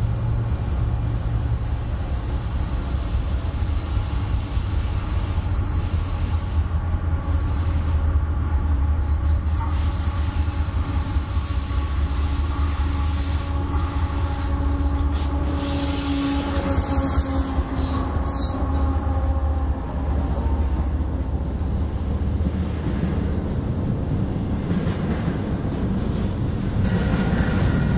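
Diesel-hauled double-stack container freight train approaching and rolling past close by. It makes a steady low rumble of locomotive engines and steel wheels on rail, with a few thin high tones near the end.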